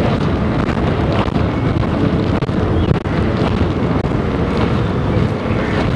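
Busy train station concourse ambience: a steady low rumble, with faint footsteps of passing passengers.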